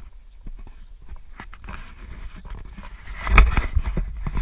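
Footsteps through long grass with rustling and scraping, then a loud rubbing bump about three seconds in as the action camera is handled and turned.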